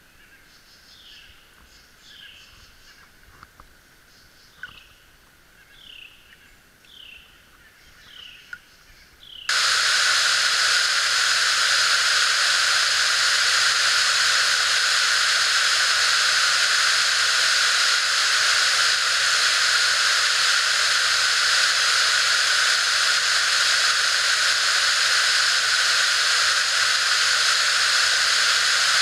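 Short high calls repeating about once a second over a quiet background. About nine seconds in this cuts suddenly to the loud, steady rush of a waterfall in full flow.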